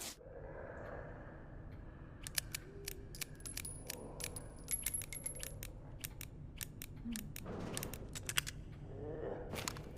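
Revolver being handled: a long run of sharp metallic clicks, some in quick clusters, over faint rustling.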